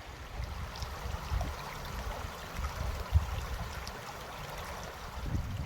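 Mountain river rushing steadily over rocks, with an irregular low rumble and a single knock about three seconds in.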